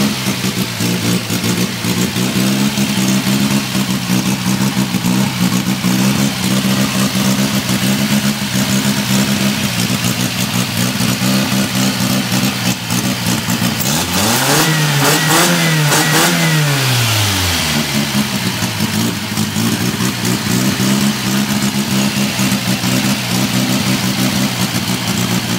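Fiat 850 Coupé Series 1 four-cylinder engine idling steadily. About halfway through it is blipped once, its pitch rising and falling back to idle over about three seconds.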